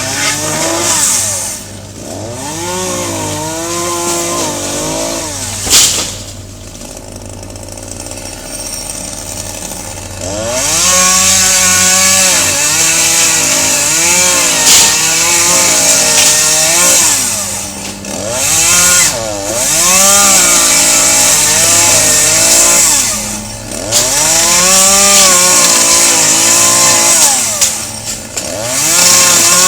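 Chainsaw revving and cutting through tree limbs, its engine pitch rising and falling as the throttle is worked. It eases to a quieter, lower run for a few seconds after a sharp crack about six seconds in, then goes back to full cutting.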